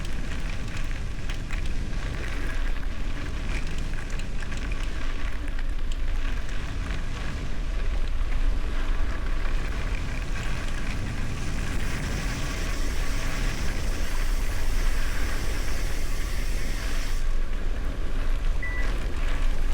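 Bicycle tyres crackling over gravel while riding, with wind rumbling on the microphone.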